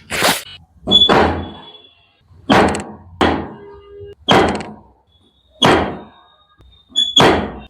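Seven sharp thuds, unevenly spaced, from hands-on chiropractic work on a patient's lower back.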